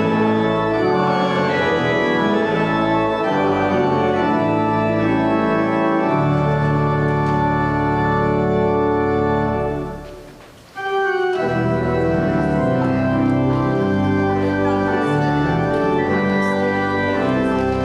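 Church organ playing sustained chords in the postlude after the benediction. The music fades and drops out briefly about ten seconds in, then resumes.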